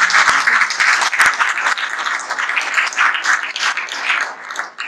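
Audience applauding, a dense spell of many hands clapping that dies away near the end.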